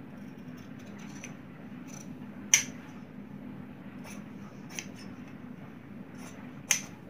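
Large tailor's shears cutting through double-folded stiff buckram: a series of short, crisp snips at an uneven pace, the sharpest about two and a half seconds in and near the end.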